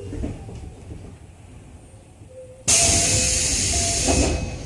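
Keio 7000 series commuter train standing at a platform, heard from inside the car: a low, quiet rumble, then about two-thirds in a sudden loud hiss of compressed air being let out, which holds for about a second and a half and then fades.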